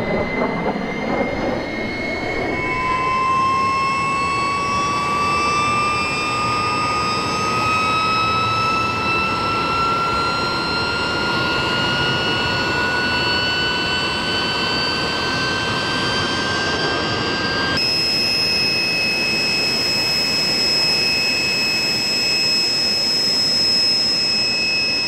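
BAE Hawk jets passing overhead in formation: the steady rushing noise of their Adour turbofan engines, with a high whine that climbs slowly in pitch. The whine jumps abruptly to a new pitch about 18 seconds in.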